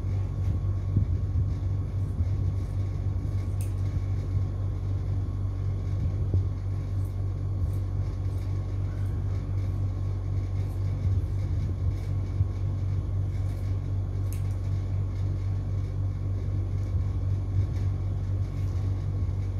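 A steady low hum throughout, with a few faint, sharp snips of tailoring scissors cutting cloth.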